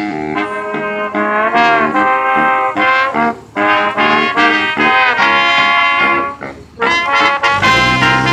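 Live band playing an instrumental passage, a brass-like lead line of held and phrased notes, recorded through a phone. Near the end, a heavier bass and full-band sound comes in.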